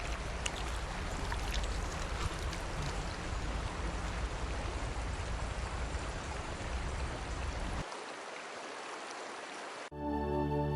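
Mountain creek water rushing steadily over rocks. Soft instrumental music begins about a second before the end.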